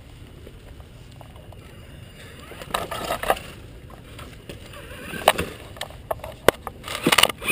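Traxxas Summit RC rock crawler climbing over river stones: scattered knocks and clatter of its tyres and chassis on the rocks over a steady low noise, building to a run of loud knocks near the end as it climbs onto the camera.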